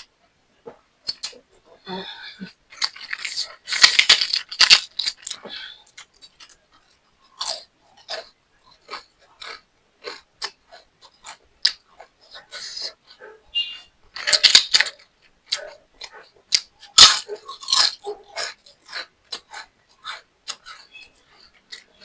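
Close-miked eating: chewing and crunching mouthfuls of fried rice with egg, as a run of short wet clicks and crackles, with louder bursts of crunching about three, fourteen and seventeen seconds in.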